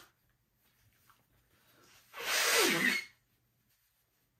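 A woman blowing her nose, congested from a cold, into a tissue: one hard blow about two seconds in, lasting under a second, with a tone that slides downward as it ends.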